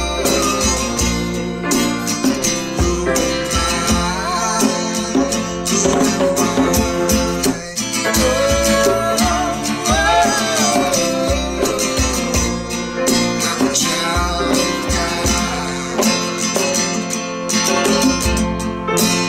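Acoustic worship song: a woman singing over strummed acoustic guitar, piano and a hand drum.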